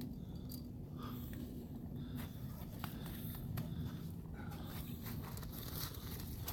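Wind rumbling on the microphone, with a few faint clicks and scuffs of handling or movement.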